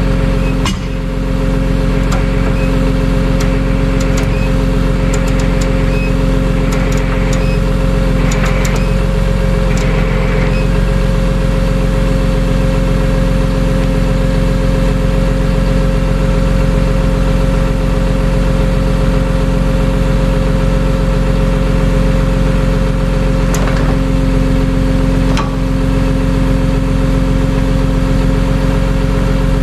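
A vehicle engine running steadily with a constant low hum. A few light clicks and taps come in the first ten seconds, and two more about 24 seconds in.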